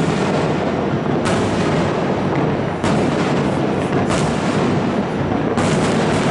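New Year's fireworks: a dense, continuous crackle and rumble of bursting shells, with four sharper bangs standing out over it.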